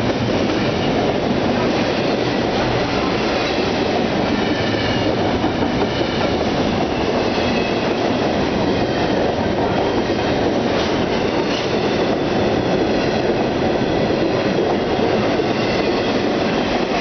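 BNSF double-stack container train rolling past at steady loudness, in pouring rain, with faint high wheel squealing through the middle.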